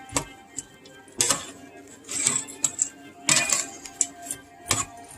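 Drained, soaked lentils being tipped and knocked out of a strainer into a metal cooking pot: a handful of irregular sharp clatters and taps, over background music.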